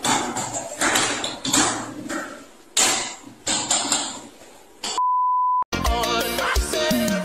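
A run of loud, irregular noisy bursts, then a steady high beep tone held for about half a second, cut off sharply. Music starts right after it, a little before the end.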